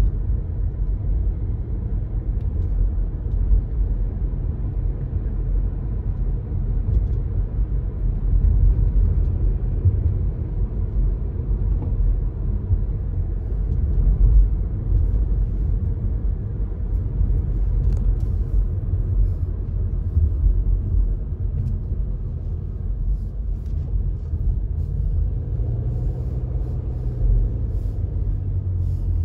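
A car driving along: a steady low rumble of road and engine noise, with a faint engine hum rising and falling near the end.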